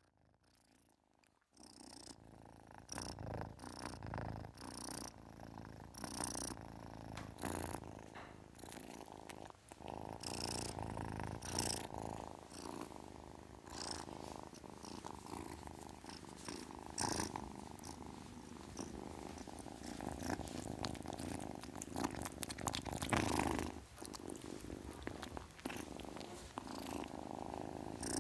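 Kitten purring, starting about a second and a half in after near silence, the purr swelling and easing with each breath.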